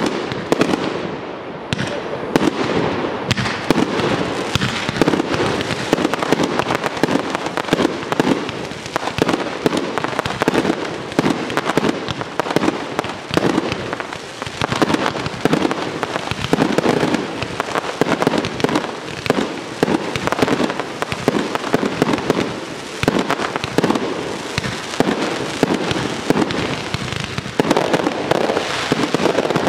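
Fireworks display: a dense, continuous barrage of bangs and crackling from shells and comets firing and bursting, with no pause.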